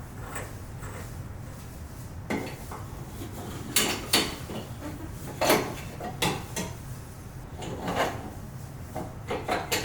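Metal plumbing parts clinking and knocking as a shower pipe is handled and tried in its wall fitting: a scattering of sharp, irregular knocks.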